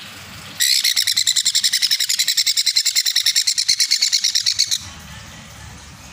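Baby sun conure chick giving its begging call: a loud, high-pitched, rapidly pulsed chirping, about ten pulses a second, starting about half a second in and stopping abruptly after some four seconds. The chick is calling to be fed.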